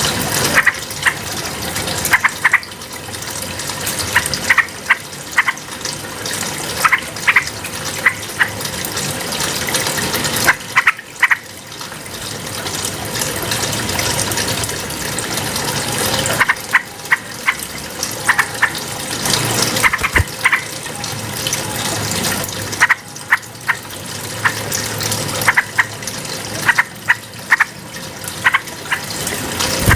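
Yellow-vented bulbul (trucukan) calling in quick clusters of short, bright notes that recur every few seconds, over a steady rush of flowing water.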